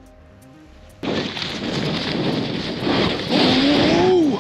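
After a quiet first second, wind buffets the microphone with a loud, rough rumbling rush that grows stronger over the last second. Near the end a brief tone rises and then falls.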